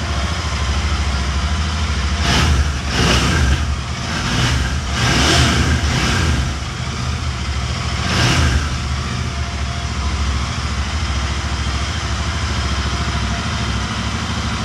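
Royal Enfield Continental GT 650's parallel-twin engine idling and blipped with the throttle several times between about two and nine seconds in, then settling back to a steady idle.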